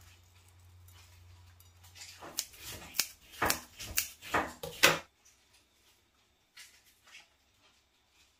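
A metal utensil clinking and tapping against a ceramic plate: a quick run of sharp clinks for about three seconds, starting about two seconds in, then a couple of faint taps.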